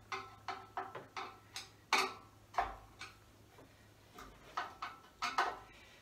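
Sharp metallic clicks and clinks, some with a brief ring, in a quick run, a pause, then a second cluster: rack-mount hardware being handled as a router is fitted to the metal rails of an open-frame rack.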